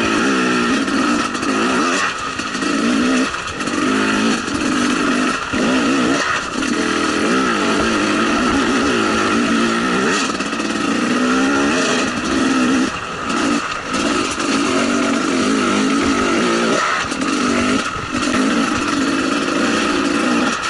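2012 KTM 300 XC's two-stroke single-cylinder engine pulling under load, its note wavering up and down as the throttle is worked, with short drops several times as it is rolled off and opened again.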